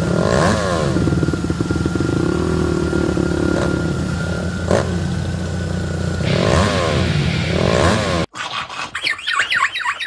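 A car engine running steadily with road and traffic noise, heard from an open-top vehicle. It cuts off abruptly about eight seconds in, and rapid high-pitched squeaks and whines follow.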